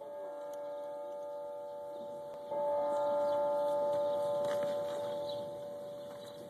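Metal ringing like a struck bell: a steady ring that swells louder about two and a half seconds in, as if struck again, then slowly dies away.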